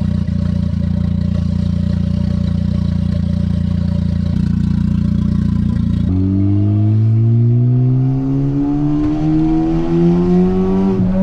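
A 2019 Honda Civic Type R's turbocharged 2.0-litre four-cylinder runs with its exhaust dumping straight out of a catless downpipe, the rest of the exhaust removed. For about six seconds it idles steadily, loud. Then, heard from inside the cabin, it accelerates, its note rising steadily in pitch.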